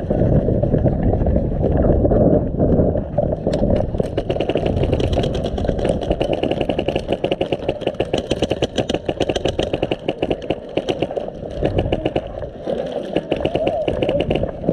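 Airsoft guns firing in long full-auto strings. From about four seconds in they make a fast, even rattle of shots over a steady low rumble.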